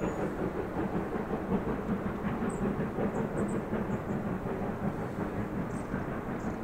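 USATC S160 class steam locomotive working out of sight, a steady rumble of exhaust and running gear.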